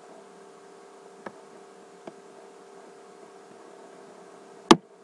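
Steady electrical hum with a faint steady tone. There are two faint ticks, then one sharp, loud click near the end.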